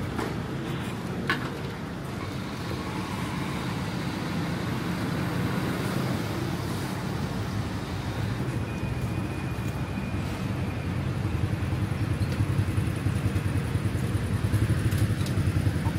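Motor vehicle engine running steadily, a low rumble with road traffic noise, growing a little louder near the end.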